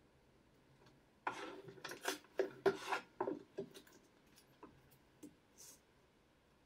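Pieces of alligator leather being handled, shuffled and rubbed against one another and the press board: a flurry of scraping and rustling with a few light knocks, between about one and four seconds in, then a few faint ticks.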